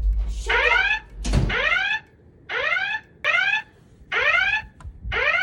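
Wheelock E60 fire alarm speaker sounding a whoop alert tone: about six short tones, each rising in pitch. This is the alert tone of a voice evacuation system ahead of its spoken message.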